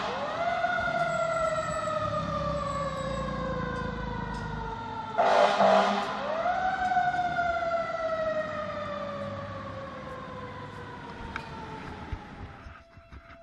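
Fire engine's mechanical siren, wound up twice and each time coasting down in a long falling wail. A short air horn blast about five seconds in comes just before the second wind-up, and the sound fades as the engine pulls away.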